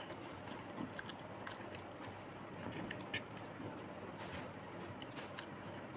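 A person chewing a mouthful of rice: faint chewing with soft clicks now and then, a slightly sharper one about three seconds in.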